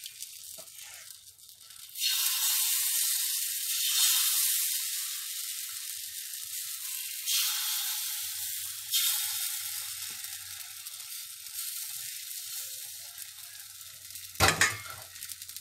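Bánh khọt batter sizzling as it is ladled into the hot oiled wells of a bánh khọt pan. The hiss flares with each pour, about four times, and dies down in between. Near the end comes one sharp clack as the lid goes onto the pan.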